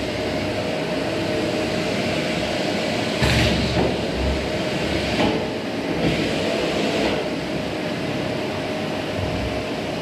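Vacuum cleaner running with a steady motor whine, with louder swells of rushing noise about every two seconds.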